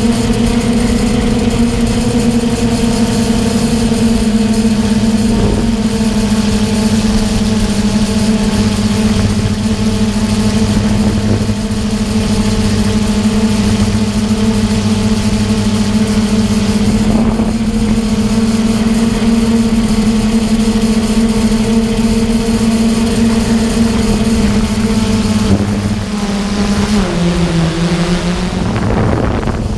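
DJI F550 hexacopter's electric motors and propellers, picked up by a camera on the frame, humming at a steady pitch. Near the end the pitch drops briefly and then climbs back.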